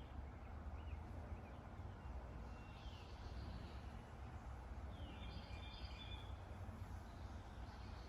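Quiet outdoor ambience: a low, steady rumble with birds chirping now and then, with short calls about three seconds in and again around five to six seconds in.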